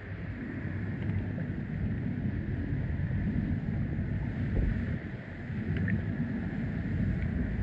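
Steady low rumble and hiss of agitated, foaming water, with wind buffeting the microphone.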